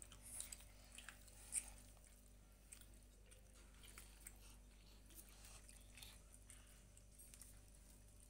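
Near silence: room tone with a low steady hum and faint scattered clicks, with two slightly louder soft taps in the first two seconds.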